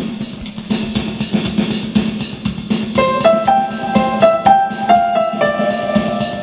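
Casio CTK-651 keyboard playing its built-in "Techno 1" preset rhythm: a fast, steady electronic drum beat. About halfway through, a short run of keyboard notes stepping up and down joins the beat.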